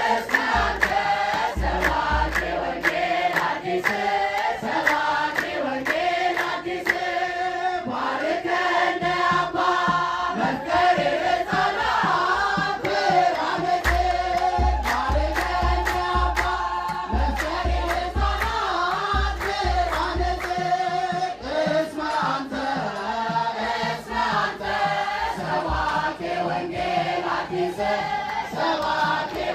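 A congregation of men and women singing an Ethiopian Orthodox hymn together in unison, with steady rhythmic hand clapping throughout. Low thuds sound beneath the singing through the middle stretch.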